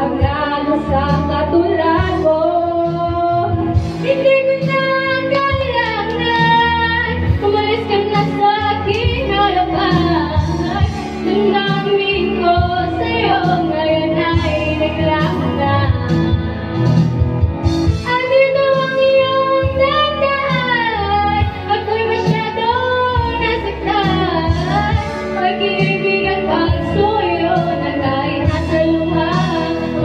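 Young women singing karaoke through an amplified microphone over a backing track, the sung melody running on without a break.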